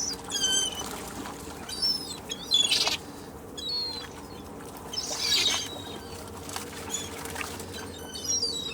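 Seagulls calling: about four bursts of short, high, downward-sliding squawks, with quieter gaps between them.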